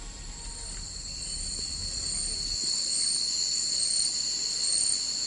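Rainforest insects calling in a steady, shrill chorus, with a higher note pulsing on and off a little faster than once a second; it grows louder over the first few seconds.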